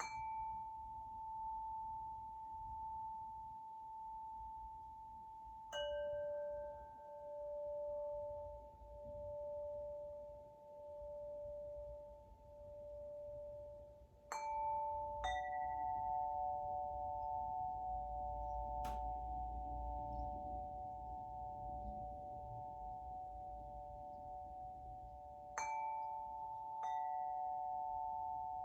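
Winter wind chime struck one note at a time, about six strikes in all. Each clear metallic tone rings on for many seconds, and the later notes overlap into a sustained chord, one lower note wavering in a slow pulse.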